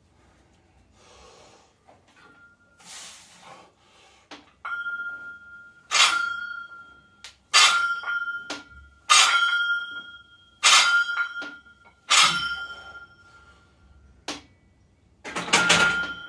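Barbell loaded with cast-iron plates clanging with a metallic ring at each rep of a bench press, five sharp clangs about a second and a half apart, with a longer clatter near the end. The clang comes from pressing the bar up explosively.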